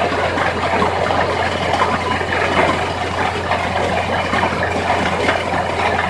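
Portable air-compressor water-well drilling rig at work: a steady, loud machine noise with a constant low hum underneath.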